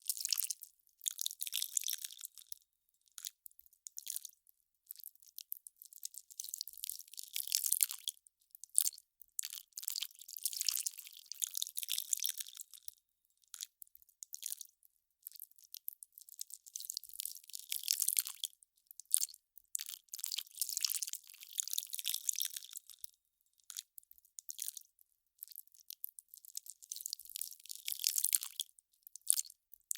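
Melting ice crackling: fine, high crackles and pops come in irregular bursts of a second or two, with short pauses between them.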